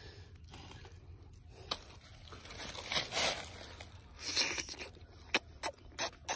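A ripe kendu (tendu) fruit is torn open by hand and bitten into, with soft tearing and chewing noises that grow louder midway. Near the end come a few short, sharp mouth clicks.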